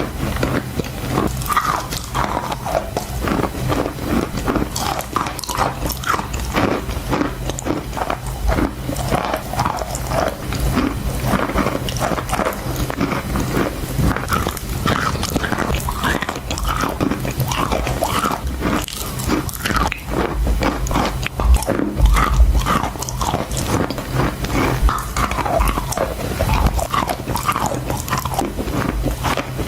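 Chalk being bitten and chewed close to the microphone: a continuous run of crisp crunches and crackles, over a steady low hum.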